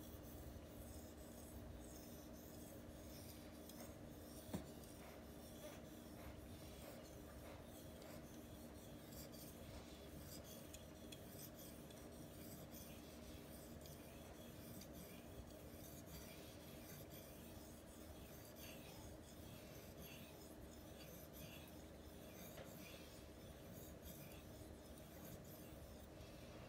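Steel knife blade stroked back and forth on a Suehiro 6000-grit waterstone: a faint, repeated scraping rasp. One sharp click sounds about four and a half seconds in.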